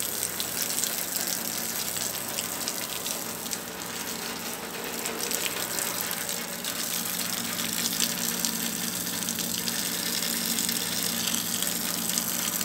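Water gushing steadily during watering, with a faint steady hum underneath.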